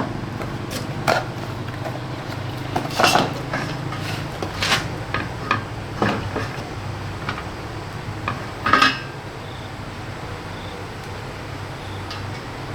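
Irregular metallic clinks and knocks of tools and parts being handled during washing-machine repair work, the loudest near the end, over a steady low hum.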